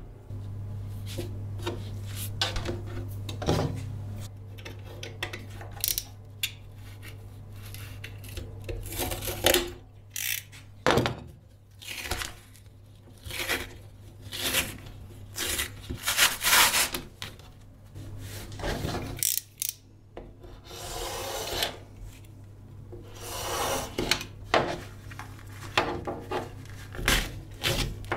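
Hands working a piece of felt-backed linoleum: irregular rubbing, scraping and rustling strokes as the white felt backing is peeled and rubbed off the sheet, with a utility knife scoring the linoleum near the end. A steady low hum sits under the first ten seconds or so.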